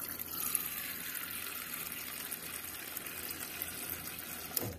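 A stream of water from a water dispenser running steadily into a stainless steel bowl as it fills, stopping shortly before the end.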